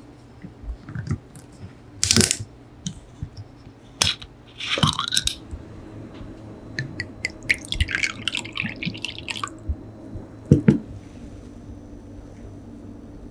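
Metal screw cap on a glass sake bottle twisted open, with small clicks and a sharp crack as the seal breaks. Sake then glugs from the bottle into a small glass cup for a couple of seconds, and the bottle is set down on the wooden counter with a knock.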